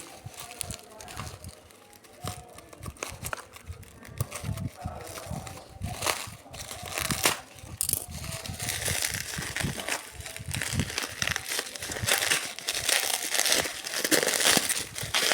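Packaging crinkling and crackling as it is handled and unwrapped, getting busier and louder from about halfway through.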